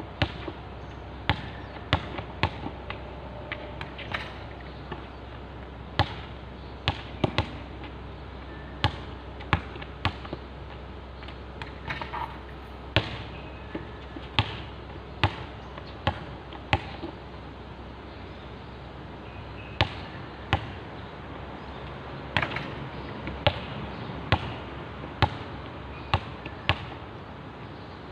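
A basketball bouncing on a hard outdoor court as it is dribbled: sharp bangs in short runs, with pauses between them.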